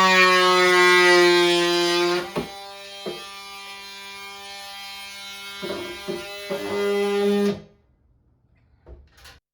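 Oscillating multitool buzzing, its pitch sagging a little under load, then running lighter with several sharp taps as the blade catches. It buzzes louder again near the end and cuts off abruptly.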